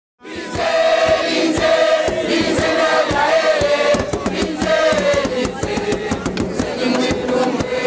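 Music: a choir singing over drums, starting suddenly a moment in.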